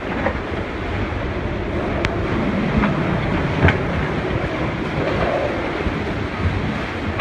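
Strong typhoon wind buffeting the microphone: a steady, rushing rumble with a few sharp knocks or rattles.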